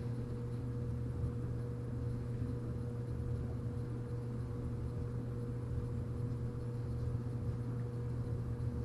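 A steady low hum with a faint, thin higher tone over it, unchanging throughout, with no knocks or clicks.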